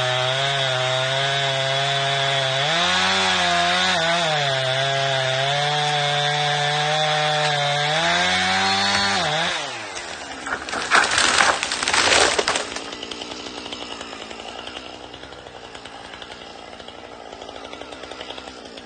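Chainsaw running hard at high revs while cutting a dead spruce, with brief rises in revs, until its pitch falls away about nine and a half seconds in. About a second later come loud cracking and crashing for about two seconds as the tree breaks and falls, branches snapping.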